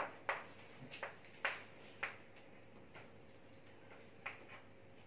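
Chalk writing on a chalkboard: a faint series of short, irregular taps and scratches as the letters are written.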